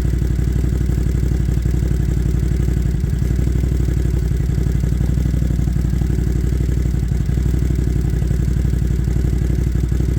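Can-Am Outlander 570 XMR's V-twin engine idling steadily with no ticking from the airbox: the intake leak, a throttle body that had come off the intake manifold, is fixed.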